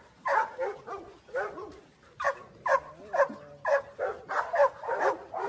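A dog barking over and over, about a dozen short barks that each drop in pitch, two or three a second.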